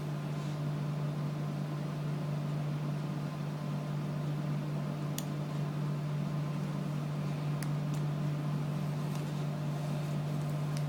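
A steady low hum with a faint background hiss, broken only by a couple of brief faint clicks.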